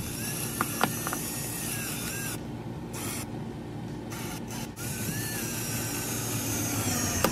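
Ridgid cordless drill driving wood screws through a dinette table's pedestal base plate into the RV floor, its motor whining with a pitch that wavers under load. A few sharp clicks come about a second in, and the whine eases off briefly a couple of times between runs.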